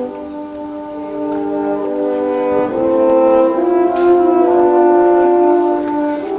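Brass band playing slow, sustained chords that swell louder about three seconds in.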